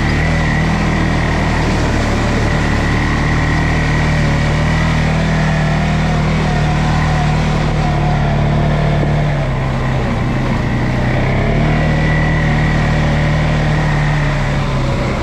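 CFMoto CForce 625 ATV's single-cylinder engine running steadily under way, the engine note dipping briefly about two-thirds of the way through and then picking up again.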